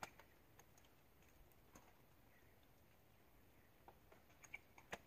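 Faint, scattered crackling and ticking of thin river ice breaking as the tide goes out, the cracks coming closer together near the end.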